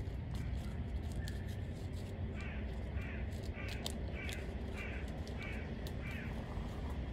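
A bird giving a series of about seven short, evenly spaced calls, a little under two a second, starting about two seconds in, over a steady low rumble with scattered faint clicks.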